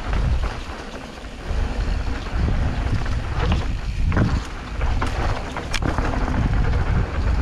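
Wind buffeting a bike-mounted camera's microphone while a mountain bike rolls fast down dirt singletrack, a loud uneven rumble from the tyres and the wind, dipping briefly about a second in. Scattered sharp clicks and rattles from the bike come through over the rumble.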